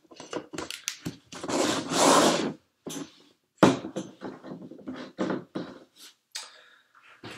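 Handling noises: a plastic lid pressed onto a paper cup, the cup moved on the table, and a hand rummaging in a cardboard box, as a string of rustles and scrapes with one longer rustle early on and a sharp knock about three and a half seconds in.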